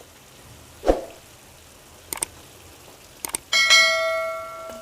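A soft knock and a few small clicks, then a metal kitchen vessel struck by a utensil rings out like a bell, a clear tone that fades over about a second.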